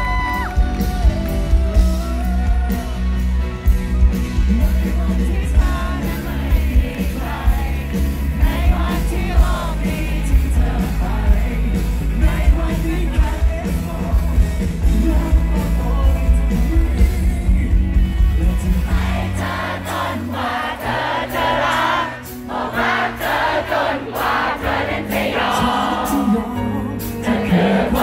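Live Thai pop ballad from a band and a male lead singer, heard from among the concert audience. About two-thirds of the way through, the bass and drums drop away and mostly voices remain.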